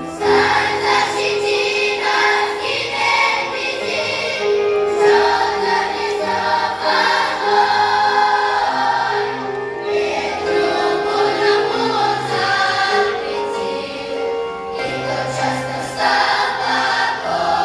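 Large children's choir singing a Russian hymn in unison, with steady low accompaniment notes held beneath the voices and short breaks between phrases.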